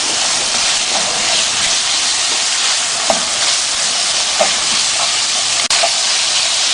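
Minced beef sizzling in hot oil in a wok, a steady hiss with a few faint clicks of a spatula being stirred through.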